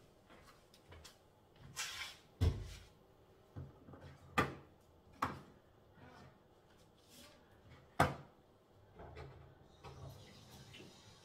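Scattered household knocks and clacks from another room as doors and cupboards are opened and shut and things are handled: a heavy thud about two and a half seconds in, then sharper clacks near four, five and eight seconds.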